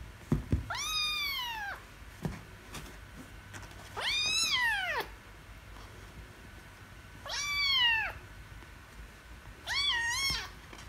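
Ginger kitten meowing loudly four times during a play-fight with another kitten, each a long cry rising then falling in pitch, the last one wavering. These are the angry protest cries of the kitten losing the wrestle. A few sharp thumps from the scuffle come just before the first meow.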